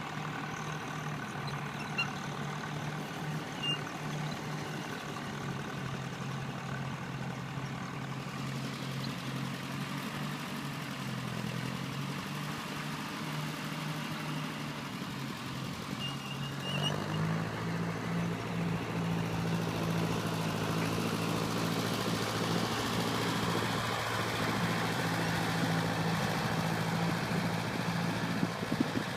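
An engine running steadily. About seventeen seconds in its note changes and it grows louder.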